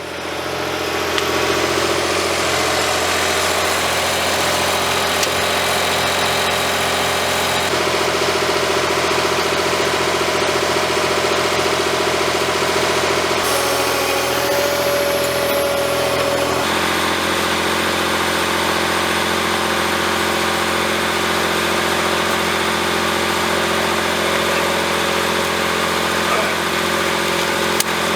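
An engine running steadily at an even speed. Its tone shifts abruptly a few times, near 8, 13 and 17 seconds in.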